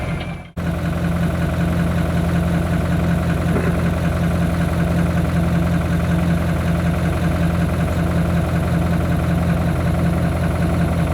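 Steady low mechanical hum, with a brief dropout about half a second in.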